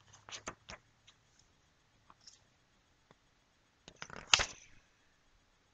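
Paper pages of a book being handled and turned: a few short crisp rustles in the first second, faint ticks after, and a louder, longer page rustle about four seconds in.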